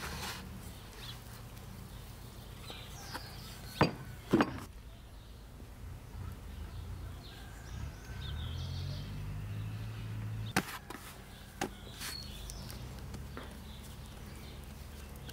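Bread dough being handled: lifted from a glass bowl, turned out onto a wooden board and pressed flat by hand. A few sharp knocks and taps come through, two loud ones close together about four seconds in and two lighter ones later, over a steady low hum and faint bird chirps.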